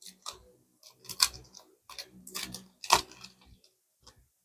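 Trading cards being handled and flicked through: irregular soft clicks and rustles of card stock sliding against card stock.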